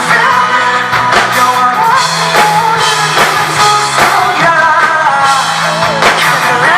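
Live rock band performance through a festival PA, loud: a male singer's voice over drums, electric guitar and bass, with the drum hits falling about once a second.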